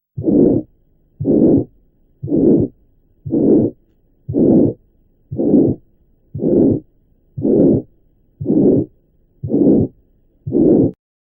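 Heart auscultation recording of pulmonary valve stenosis without a ventricular septal defect: eleven beats about a second apart, each a prolonged systolic murmur in which the second heart sound is hardly evident.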